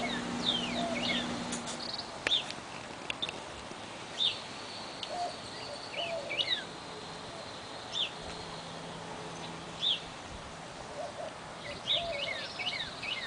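Several small birds chirping and calling at a feeder garden: short, sharp, downward-sliding chirps that come in clusters every couple of seconds, with softer lower notes between them. A low steady hum stops about two seconds in.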